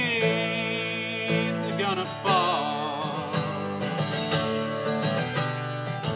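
A man sings the last held note of a folk song with vibrato, letting it slide down, then a short sung phrase about two seconds in, over a steadily strummed acoustic guitar that carries on alone to the end.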